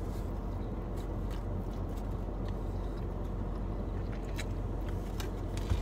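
Steady low rumble inside a car with the engine idling, with a few faint soft clicks.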